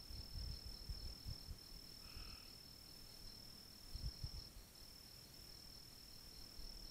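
Crickets chirring in a steady, high-pitched night chorus. A few low, dull bumps come in the first second and a half and again around four seconds in.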